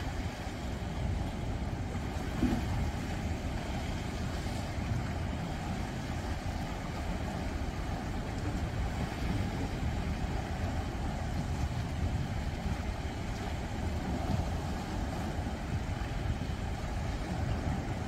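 Sea waves washing against the rocks of a breakwater: a steady rush of surf with a deep low rumble, no single wave standing out.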